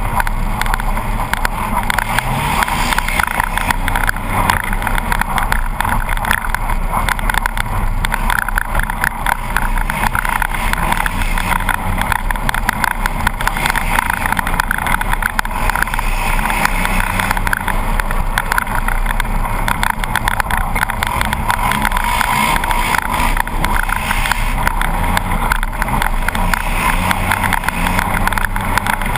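Polaris RZR 800 side-by-side's twin-cylinder engine running hard at speed, its pitch rising and falling as it revs, over a steady rush of road and wind noise.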